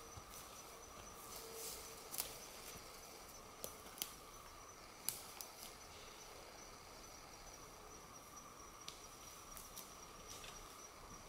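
Quiet pine-forest ambience: a steady, high-pitched insect drone, with a few sharp snaps between about two and five seconds in.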